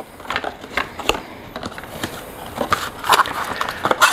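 Cardboard box of a Shimano Ultegra cassette being opened and its plastic packaging tray pulled out and handled: crinkling and rustling with a string of sharp clicks, loudest about three seconds in.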